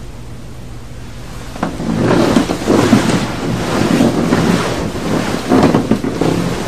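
Loud snoring from a sleeping person, rough rattling breaths that swell and ease. They start about a second and a half in, over a steady hiss.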